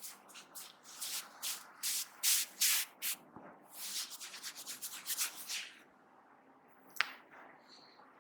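Hands rubbing briskly through hair and over the scalp in a head massage, a quick run of hissing strokes that stops about six seconds in, then one sharp click near the end.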